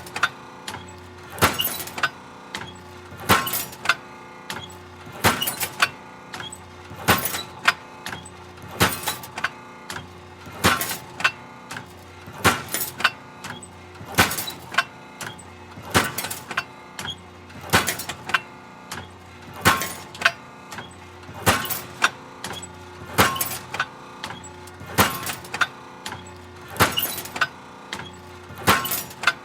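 Hydraulic metal shear running in a steady cycle: a sharp metal bang about every two seconds, sometimes a quick double strike, over the machine's continuous hum.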